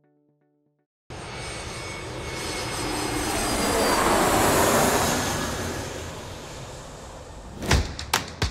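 Aircraft passing by, likely a sound effect: a rushing engine noise with a faint high whine starts abruptly about a second in, swells to its loudest around four to five seconds in, then fades. Sharp percussive music hits begin near the end.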